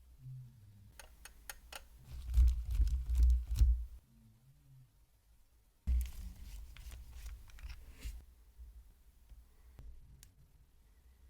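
Hands working on small parts: a few sharp clicks, then two spells of rubbing and scraping with low bumps against the work surface, each about two seconds long.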